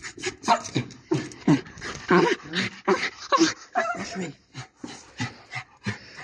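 A small dog whining and yelping excitedly in a rapid string of short cries that rise and fall in pitch: an excited greeting of its owner coming home.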